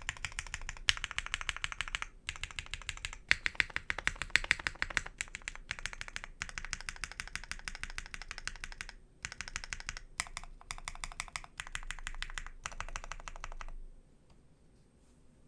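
Typing on a custom 60% mechanical keyboard with lubed Gateron X switches, an aluminium half plate in a gummy o-ring mount and GMK Apollo keycaps: a rapid run of keystrokes with a few short pauses and some louder single key strikes, stopping about 14 seconds in.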